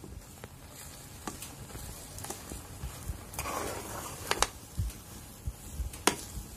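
Metal spoon stirring and scraping thick rice-flour dough in a metal pan, with scattered clicks of the spoon against the pan and a brief soft squish midway.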